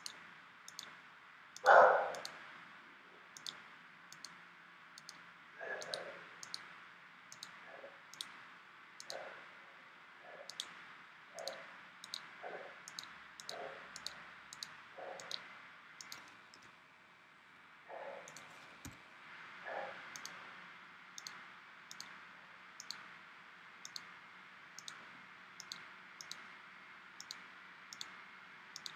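Computer mouse clicking repeatedly, a sharp click every half second to second. Duller knocks sound among the clicks, the loudest about two seconds in and softer ones through the first twenty seconds.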